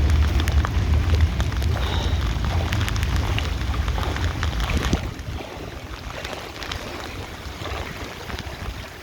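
Wind buffeting the microphone with a patter of rain, the rumble easing suddenly about five seconds in.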